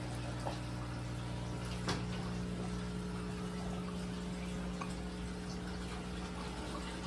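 Aquarium equipment running: a steady low hum from the pump with water trickling and air bubbling from the airstone. A faint tick about two seconds in.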